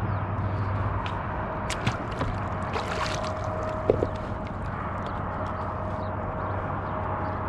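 Water lapping and sloshing against a fishing kayak's hull over a steady low rumble. A run of sharp clicks and knocks from gear being handled in the kayak falls around the middle, the loudest pair just before four seconds in.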